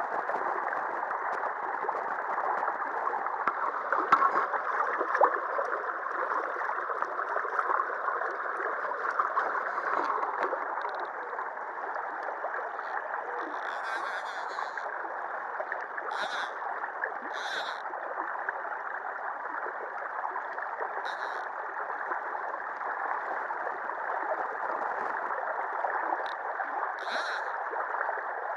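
Shallow river water rushing and gurgling steadily over a rock ledge. There are a couple of light knocks about four and five seconds in, and a few short high-pitched sounds over the rush from about the middle on.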